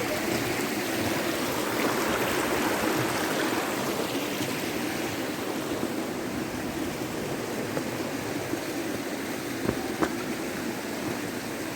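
Steady rushing of a mountain stream, water running over rocks, with two short sharp clicks a little before the end.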